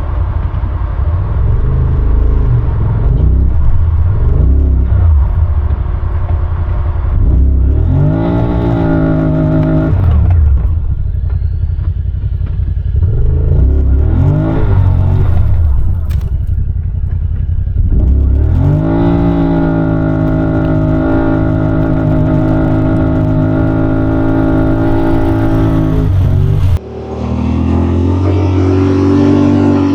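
Side-by-side UTV engine running under load, its pitch rising and falling repeatedly as the throttle opens and eases off. About 27 seconds in, the sound cuts abruptly to a different, steadier low drone.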